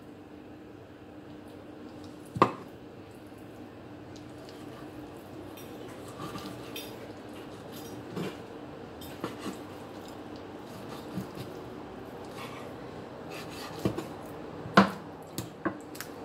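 Kitchen knife knocking and scraping on a cutting board while raw chicken breast is cut off the bone: scattered light clicks, a sharp knock about two seconds in, and a cluster of knocks near the end, over a faint steady hum.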